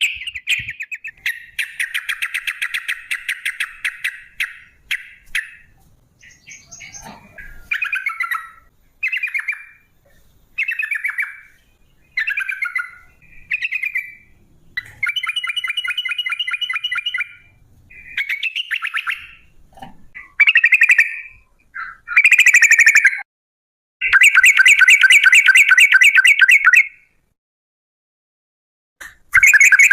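Yellow-vented bulbul (trucukan) singing in short bubbly phrases that break into long, fast rattling trills, the 'ropel' rolls. The longest trill, about three seconds, comes in the second half.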